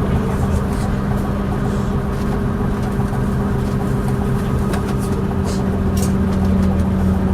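Leyland Atlantean bus's six-cylinder Leyland O.680 diesel engine running at a steady speed, with a few sharp clanks from the bus in the second half.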